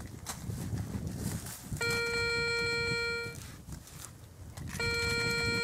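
Metal detector, a Garrett ACE 250, sounding its target tone twice as the coil passes over the dug soil: a steady electronic beep of about a second and a half, then another of about a second. This is the signal that a metal object is still in the hole or the spoil. Under it there is the rustle and scrape of gloved hands working soil and dead leaves.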